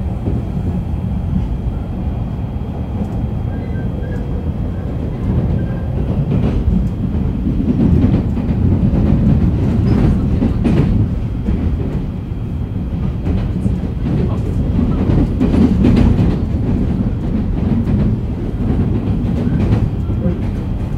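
Shonan-Shinjuku Line electric commuter train running at speed, heard from inside a car. The wheels on the rails give a steady rumble with scattered clacks over rail joints, growing louder about eight and again about fifteen seconds in.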